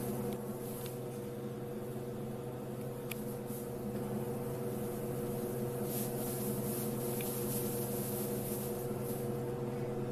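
Steady mechanical hum of several fixed low tones over a faint hiss, with a few faint ticks.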